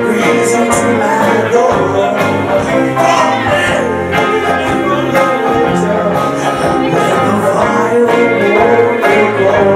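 Live band playing a country-rock tune with electric guitars, banjo and drums, with a steady beat.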